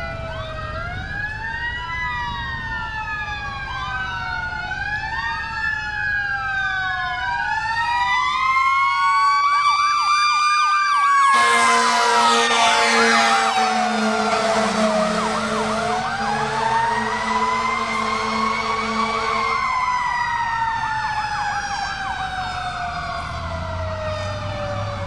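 Pierce Quantum fire engine's siren wailing up and down. About eleven seconds in, a loud air horn joins it and holds for about eight seconds as the truck passes, the loudest part. After that the siren goes on alone, slowly sliding down in pitch and growing fainter as the truck moves away.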